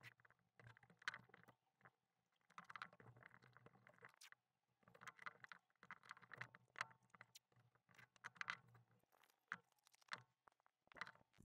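Faint handling sounds of tape being pressed and smoothed onto the back of a keyboard PCB: scattered soft crinkles, rubs and small clicks.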